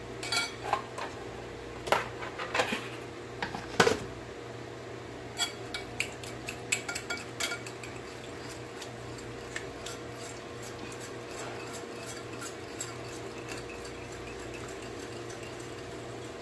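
Small wire whisk clinking and scraping against a ceramic bowl as yogurt is beaten. Sharp clinks in the first four seconds, then quicker, lighter ticking that thins out after about eight seconds, over a steady low hum.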